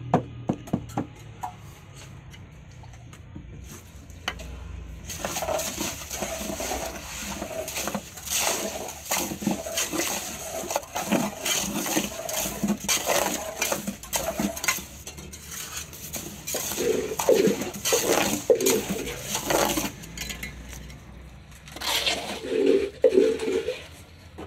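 Wet cement mix being scooped with a plastic scoop and slapped and scraped into a wooden mould tray around metal forms: a few sharp knocks at first, then long stretches of irregular scraping and wet slaps, with a second short burst near the end.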